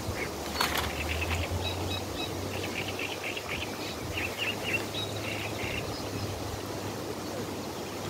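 Small birds chirping in quick short notes over a steady rush of wind on the microphone, with a brief tap under a second in.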